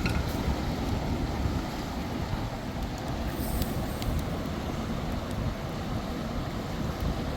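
Steady rushing of a river and wind, with a deep rumble underneath and a few faint clicks.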